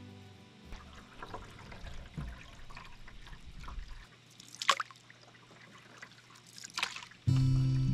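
Canoe paddle strokes in lake water: water trickling and dripping, with two sharper splashes about two seconds apart in the second half. Music comes in loudly near the end.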